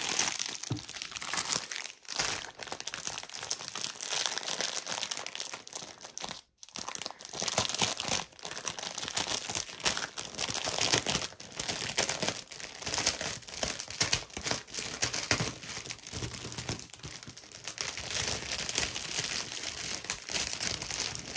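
Plastic packaging of diamond painting drills crinkling and rustling as it is handled and opened, with a short pause about six and a half seconds in.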